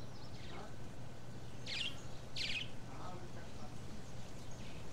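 Songbird giving two short, high calls about two seconds in, over a steady low hum.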